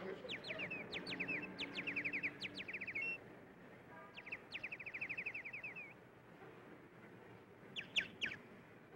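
A songbird singing fast trills of high chirping notes in two phrases of two to three seconds each, then a few short, louder notes near the end.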